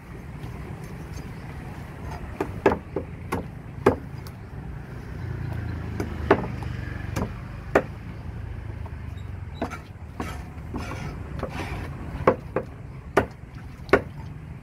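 A large curved fish-cutting blade chopping fish on a thick wooden chopping block: about a dozen sharp chops at uneven intervals, bunched in the first few seconds and again near the end. A steady low rumble runs underneath.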